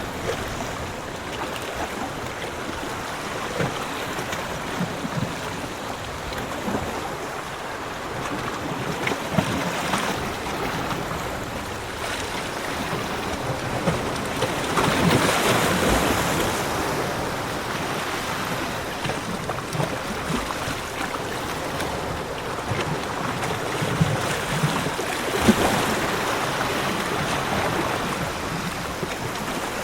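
Ocean surf washing onto a beach, a steady hiss of water that swells louder as bigger waves break about halfway through and again near the end.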